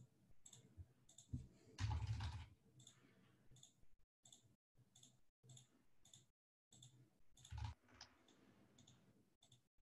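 Faint computer mouse clicks and keyboard keystrokes as answers are picked and a short reply is typed, with a few soft thumps, the loudest about two seconds in.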